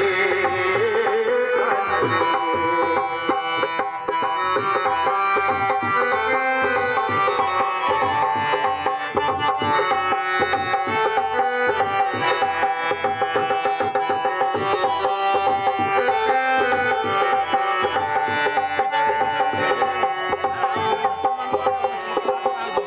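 Traditional Indian music with quick hand-drum strokes under a held, sustained melody line, playing steadily throughout.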